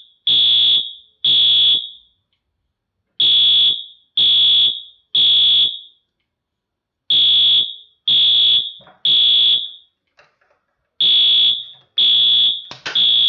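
Wheelock MT-24-MCW horn strobe sounding a loud, buzzy electronic horn tone in the temporal-three (code 3) evacuation pattern: three half-second blasts about a second apart, then a pause of about a second and a half, repeating.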